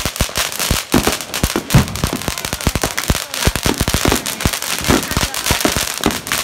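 Ground-level fireworks going off close by: a rapid, unbroken barrage of sharp cracks and bangs over a steady crackling hiss.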